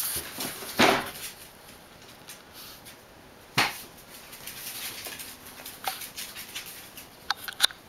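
Two West Highland white terriers tussling over a ball on a tile floor: scattered short knocks and clicks, with a louder one about a second in, another between three and four seconds, and a quick cluster near the end.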